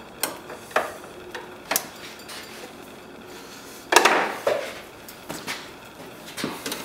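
Scattered clicks and knocks of a screwdriver and small parts being handled and set down, with a louder clatter about four seconds in.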